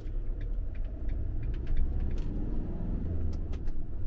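Campervan driving, heard from inside the cab: a steady low engine and road rumble with scattered small clicks and rattles.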